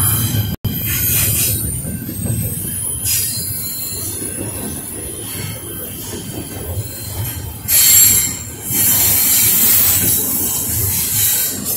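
Double-stack intermodal freight train rolling past: a low rumble of wheels on rail with high-pitched wheel squeal and repeated hissing screeches, loudest a little after the middle. The sound drops out for an instant about half a second in.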